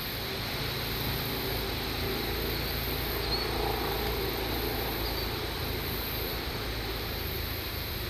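Wind buffeting the microphone in a steady low rumble, with an even hiss of blowing air above it.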